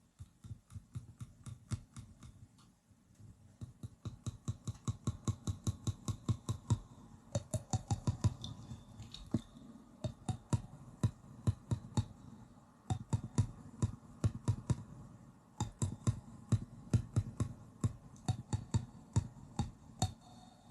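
A person making quick mouth clicks with the teeth and cheeks: runs of sharp clicks at about four to five a second, broken by a few short pauses.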